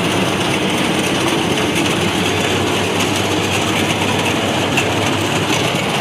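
Yanmar YH850 combine harvester's diesel engine and crawler running steadily, a dense continuous mechanical clatter.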